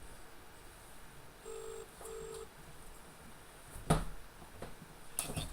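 British telephone ringback tone heard down the line: a double ring, two short steady burrs in quick succession, as the call rings out unanswered. A sharp click about four seconds in and more clicks near the end.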